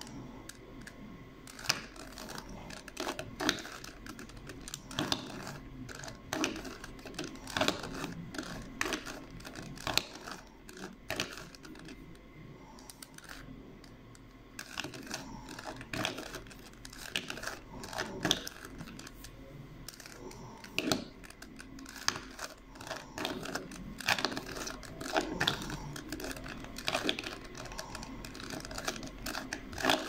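Plastic 3x3 Rubik's cube being turned quickly by hand: irregular clicking and clacking of the layers, several turns a second, with a few short pauses.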